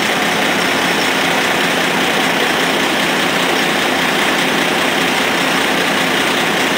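Cummins diesel engine of a 1930 Moore Speedcrane running steadily, heard close up beside the engine.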